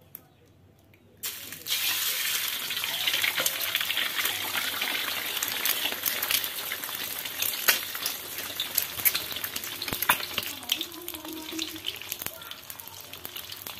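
An egg cracked into hot oil in an aluminium wok: a small click as the shell breaks, then a sudden loud sizzle about a second in as the egg drops into the oil, full of crackling spatters, slowly easing off.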